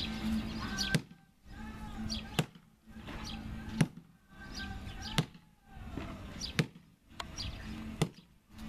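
Steel axe chopping into the trunk of a cedar tree: six sharp strikes, evenly spaced about a second and a half apart. Birds chirp between the blows.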